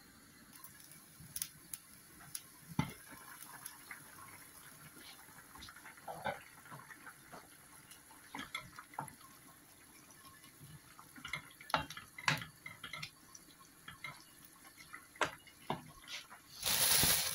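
Pot of potato and dried-fish curry simmering on a gas stove, its liquid bubbling with scattered small pops and clicks. Near the end a wooden spoon is stirred through the curry, giving a louder burst of sloshing and scraping that lasts about a second.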